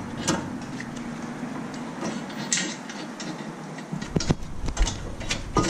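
Scattered metallic clicks and ticks as the 17 mm caliper bracket bolts are fitted and tightened on a 2010 Honda Civic's front steering knuckle, the clicks coming thicker near the end.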